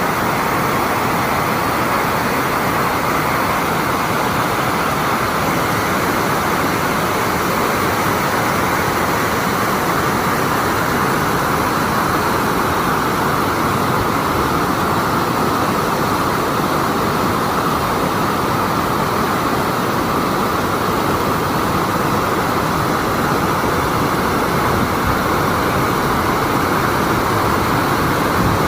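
A waterfall's rushing water: a loud, steady, unbroken noise with no change in it.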